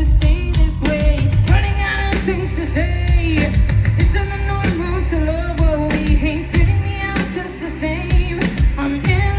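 Live rock band performing: a woman singing over distorted electric guitars, bass and a pounding drum kit.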